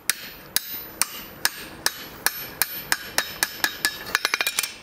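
Hand hammer striking a red-hot bar held in a bending fork hardy on an anvil, about two to three sharp blows a second, bending the hot end into a curve. Near the end the blows give way to a quick run of lighter, closer taps.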